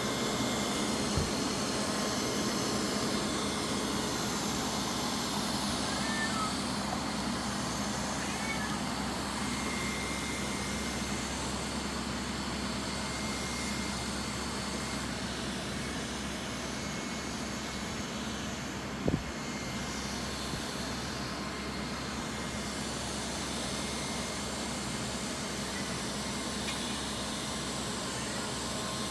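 Lefant M201 robot vacuum running, a steady whir of its motor and brushes, with a single sharp knock about two-thirds of the way through.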